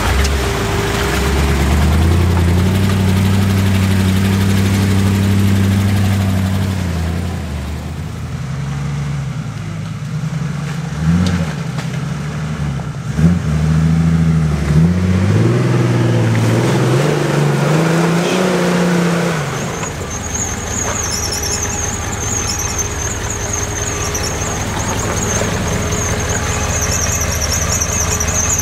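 Off-road 4x4 engine revving, its pitch rising and falling repeatedly under load. About twenty seconds in it drops to a lower, steadier run, and a high wavering squeal joins it.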